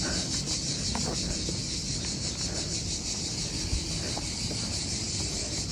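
Cicadas buzzing in a steady, high-pitched chorus with a fine, rapid pulse.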